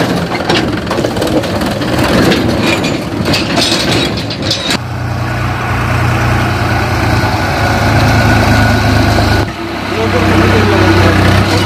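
Farm tractor diesel engines running while pulling loaded trolleys. The first few seconds are noisy with scattered knocks and rattles. About five seconds in, the sound changes suddenly to a steady low engine hum, and it changes suddenly again shortly before the end.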